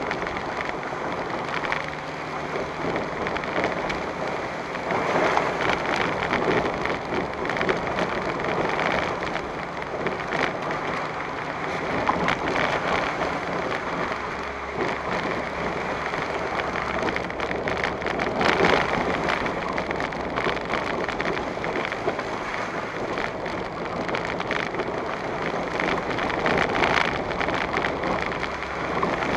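A vehicle driving over a rough, wet, muddy dirt road: steady road and tyre noise with a dense patter of small knocks and rattles as it rides the ruts and puddles.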